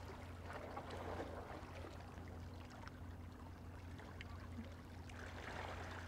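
Faint seaside ambience: gentle water lapping against the breakwater rocks over a low steady hum.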